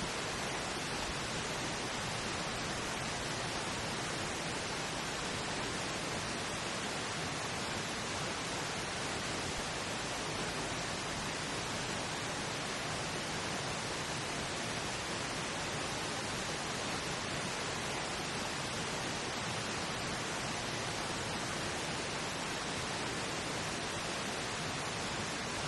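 Steady, unchanging pink noise, the audible layer of a subliminal affirmation track that hides the repeated affirmations beneath it.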